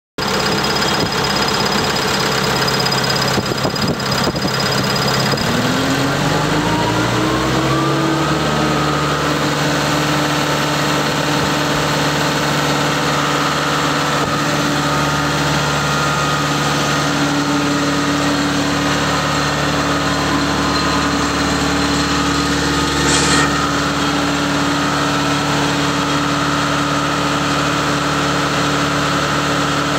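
Caterpillar C4.4 four-cylinder diesel engine of a power unit running. About five seconds in it speeds up over a few seconds, then runs steadily at the higher speed, with one brief sharp noise about three quarters of the way through.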